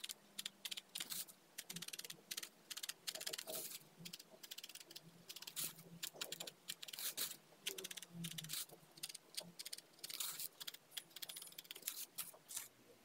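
A felting needle stabbing again and again into wool on a foam mat: a long run of faint, quick, scratchy pokes with short pauses between runs.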